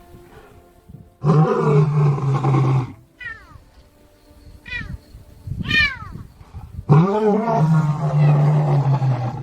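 White lions calling as they yawn: two long, loud yawning calls of about two seconds each, holding a steady low pitch, with three short calls falling in pitch between them.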